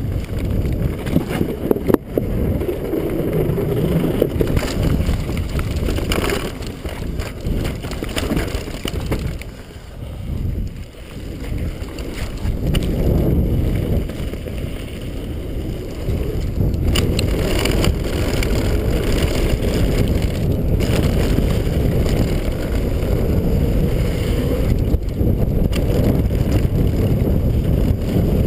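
Downhill mountain bike at speed on a dirt and gravel trail: a steady low rush of wind over the microphone mixed with the tyres rolling over the ground, with a few sharp knocks as the bike hits bumps, the clearest about two seconds in.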